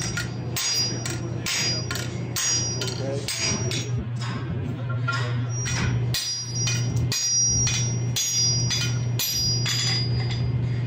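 Hand hammers striking glowing hot steel on a steel anvil, forging blows in a steady rhythm of about two a second, each with a bright metallic ring. A steady low hum runs underneath.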